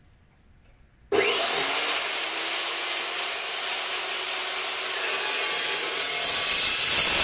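Evolution Rage 2 cold-cut chop saw, a slow 1350 RPM dry-cutting saw, starts about a second in and its blade cuts through 2x2 mild steel square tubing with 1/8 wall. The cut is a steady, harsh rasp that grows louder toward the end.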